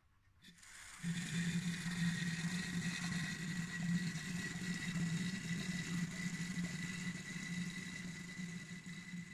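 Steam and water venting from a Wilesco D20 toy steam engine's boiler through a thin silicone tube into a plastic bottle: a steady hiss and sputter that begins about a second in and eases off slightly near the end as the pressure falls.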